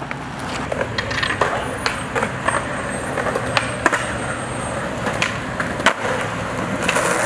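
Skateboard wheels rolling over concrete pavement, with scattered sharp clacks of boards hitting the ground.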